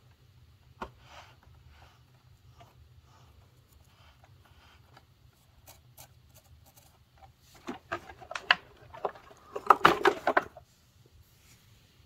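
Hands handling the plastic base of a switched-off Hoover WindTunnel upright vacuum: soft taps and rubbing, then a couple of seconds of louder plastic clicks and rattling about eight seconds in.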